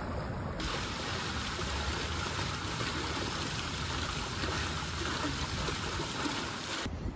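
A steady rush of running water, cutting in abruptly about half a second in and cutting off just before the end.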